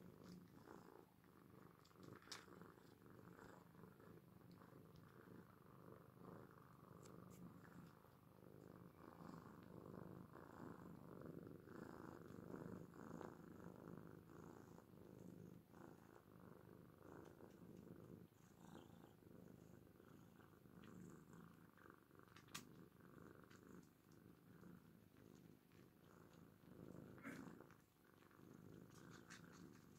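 Faint, steady purring of Oriental cats, with a couple of brief clicks.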